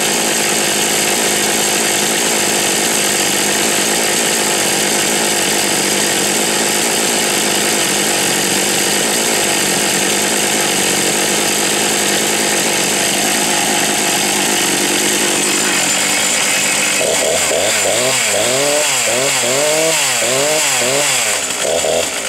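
Two-stroke chainsaw running hard at high revs. From about 16 seconds in, its pitch sweeps up and down over and over as the throttle is worked.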